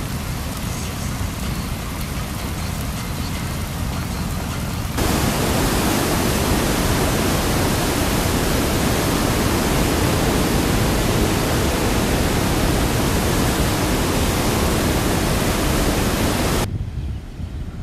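Rushing floodwater in a swollen river running through rapids: a steady roar of water. It jumps louder and fuller about five seconds in and drops much quieter near the end.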